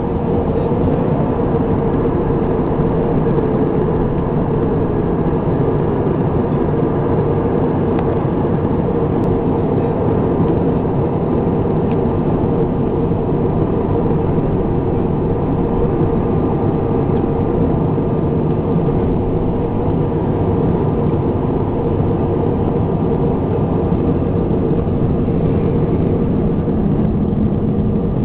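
Airbus A320 jet engines running steadily: a constant, even drone with a steady hum in it.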